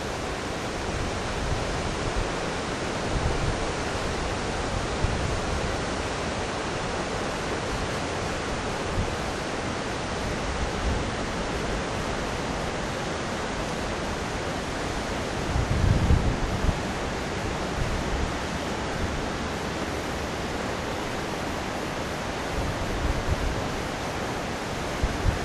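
Steady rushing roar of a river in flood, swollen with snowmelt and heavy rain. A few low wind buffets hit the microphone, the strongest about two-thirds of the way in.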